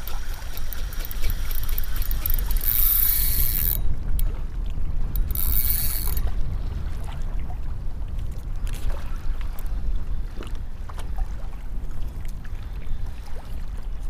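Fishing reel drag buzzing out line twice, about three and about five and a half seconds in, for a second or so each time, as a hooked shark pulls against the bent rod. Underneath is a steady low rumble of wind on the microphone and water around the kayak.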